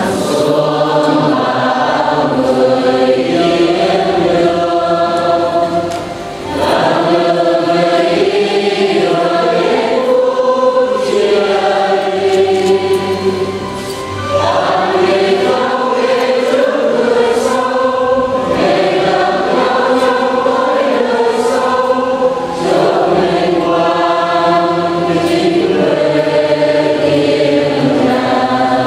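Choir singing a hymn in long phrases, with brief pauses between them.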